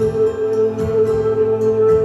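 Live band music: one high melody note held steady over a soft beat.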